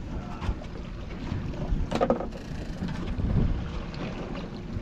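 Wind buffeting the microphone over a boat's motor running steadily, with one short knock about two seconds in.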